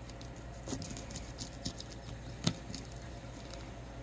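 Faint scraping and light clicks of a knife working under a gar's hard, scaly skin as it is peeled back, with one sharper click about two and a half seconds in.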